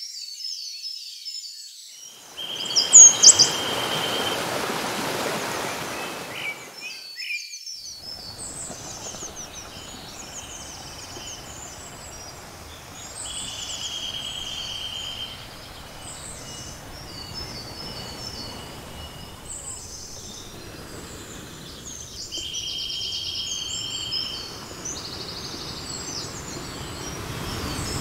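Nature soundscape of many small birds chirping and twittering over an even rushing noise like a stream. The rush swells loud for a few seconds near the start, then runs lower, and a steady high buzz comes and goes. A few loud chirps stand out about three seconds in.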